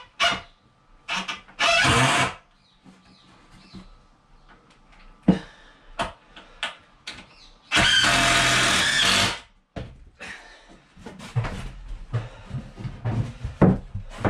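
Power drill driving wood screws into timber framing: short runs of the motor, with the longest run about eight seconds in. Clicks and knocks of the timber and tool being handled sound between runs.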